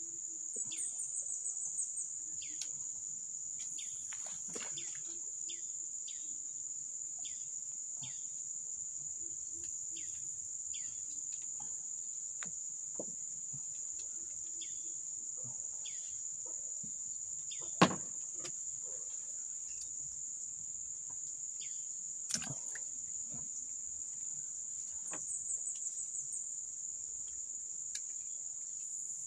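Steady high-pitched drone of insects from the riverside jungle, with many short falling chirps over it and a sharp knock about eighteen seconds in.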